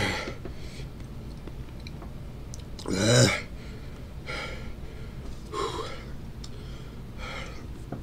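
A man makes one short, loud throaty sound about three seconds in, then several breathy exhales, reacting to the burn of a Carolina Reaper-filled super-hot candy bar.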